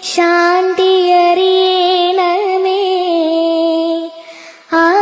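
A voice singing a slow Malayalam prayer song in long, held notes with vibrato, with a short break for breath near the end.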